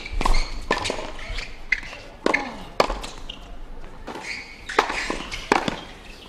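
Tennis ball being struck by rackets and bouncing on a hard court: a string of sharp knocks at irregular spacing.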